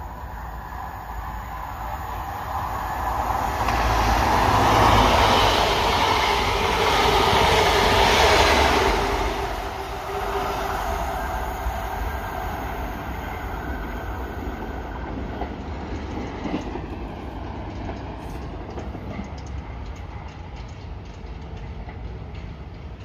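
InterCity 125 high-speed diesel train passing the platform at speed. Its engine and wheel noise grows, is loudest about four to nine seconds in, then fades as it draws away.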